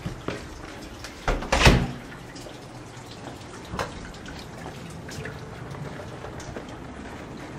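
Meltwater dripping in scattered drops over a steady background hiss, with a couple of loud knocks about a second and a half in.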